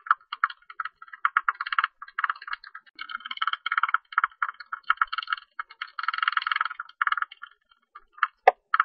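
Calls of a Hilgendorf's tube-nosed bat: rapid trains of dry clicking pulses that come in chattering bursts of about a second, with short gaps between.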